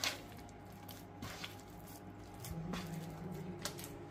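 Hands kneading soft, oiled pav dough in a metal bowl: faint wet squishing, with a few short, sharp sounds.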